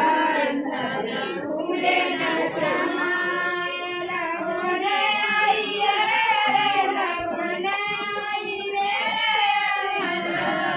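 High-pitched voices singing an unaccompanied song in long, drawn-out notes that bend up and down.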